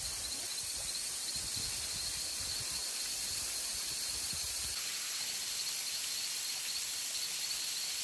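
Forest ambience: insects trilling steadily at a high pitch over an even hiss.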